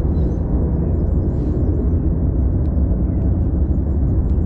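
125cc motorcycle engine running steadily at idle while its fuel map is tuned, with faint bird chirps above it.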